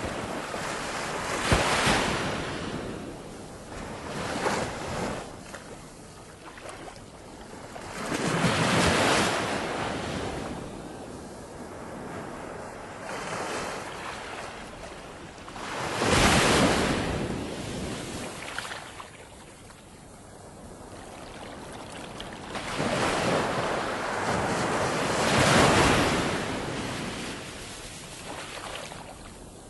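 Ocean waves breaking and washing in, the rushing surges swelling and fading every few seconds, with some wind.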